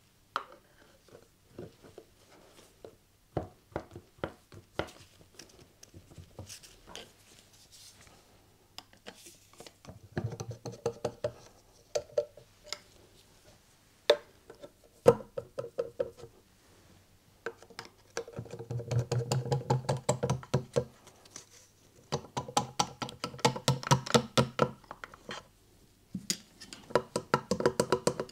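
A flat-bladed screwdriver prying and tapping at the edge of a motorcycle engine's alloy side cover, with scattered metallic clicks and knocks and several bursts of rapid tapping as the bolted-free cover is worked loose from the crankcase.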